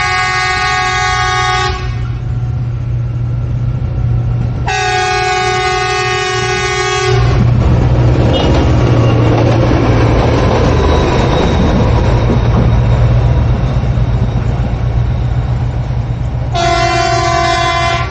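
Train locomotive's air horn sounding three long chord blasts, the second about five seconds in and the third near the end, over a steady low rumble. From about seven seconds in, a louder rushing rumble of the train running.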